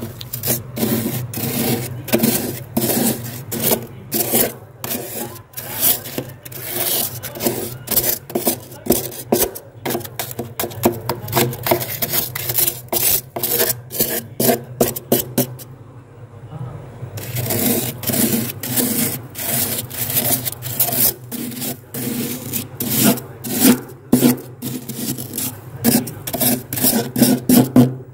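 Kitchen knife blade scraping thick, soft frost from the walls of a freezer compartment in rapid, repeated strokes, with a pause of about a second and a half a little past the middle. A low steady hum runs underneath.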